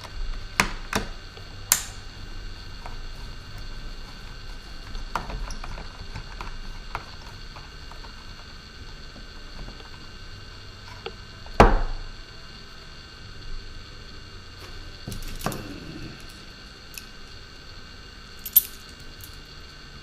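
Screwdriver and small-parts handling on the drone's plastic body as screws are loosened and taken out: scattered clicks, taps and knocks, the loudest a sharp knock about twelve seconds in. A steady electrical hum runs underneath.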